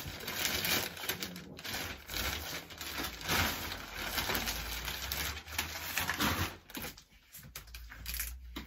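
Black plastic mailing bag rustling and crinkling in a long run of quick crackles as it is handled and a plastic-wrapped whiteboard is pulled out of it. The rustling dies away near the end.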